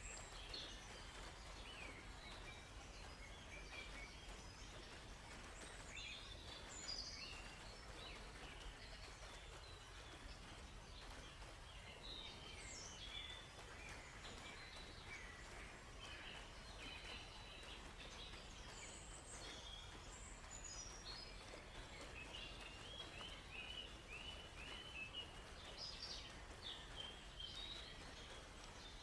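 Several songbirds chirping and calling, faint, with short scattered notes throughout and a quick run of repeated notes near the end, over a soft steady background hiss.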